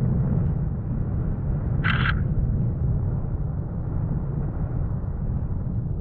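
Steady low rumble of wind buffeting the weather balloon payload's GoPro microphone, with one short high beep about two seconds in.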